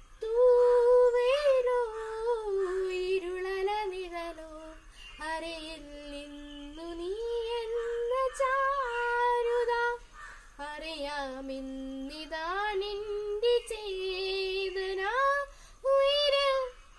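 A girl singing solo and unaccompanied: a melody of held notes with sliding ornaments, sung in phrases with short pauses for breath between them.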